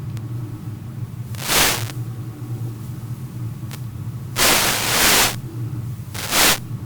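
Airflow rushing over the microphone during a radio-controlled glider flight, coming in three loud gusts: a short one, a longer one lasting about a second, then another short one. A steady low hum runs underneath.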